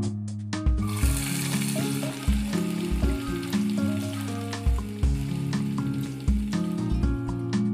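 Food frying and sizzling in a pan, starting about a second in, over background music with a steady beat.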